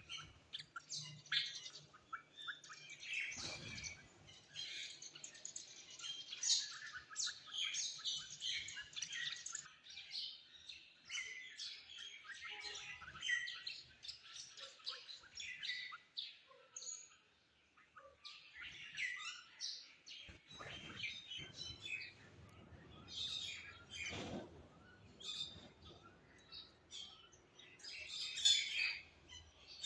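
Small birds chirping and twittering, a dense run of short, high calls with a brief lull about halfway through.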